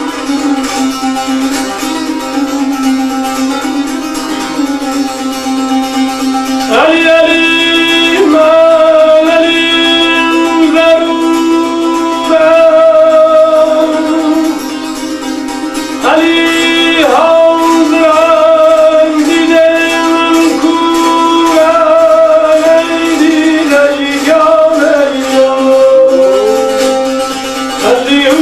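Tanbur, the long-necked Kurdish lute, playing a traditional piece. A voice joins about seven seconds in and again about sixteen seconds in, singing long wavering held notes over the plucked strings.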